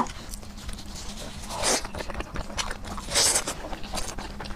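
Close-miked eating sounds of braised pork knuckle: wet chewing, smacking and soft clicks, with two louder, noisier sounds about one and a half and three seconds in.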